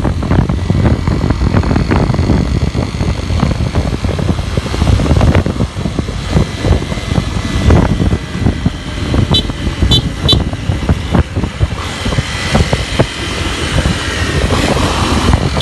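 Motorcycle engine running during a ride, heard from on the bike with heavy wind buffeting on the microphone. A few short high beeps sound a little past halfway.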